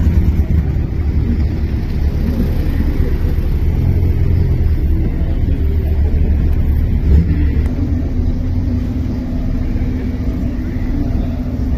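Ferrari Dino 308 GT4 NART race car's V8 engine running with a steady, deep rumble, without sharp revs; from about eight seconds in it settles into an even hum.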